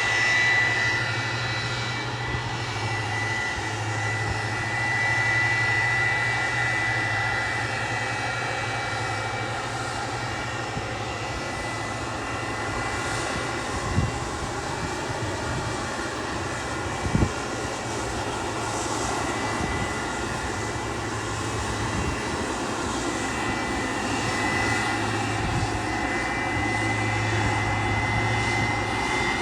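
Fixed-wing aircraft engines running steadily, with a constant high whine over a low hum. Two brief thumps come about halfway through.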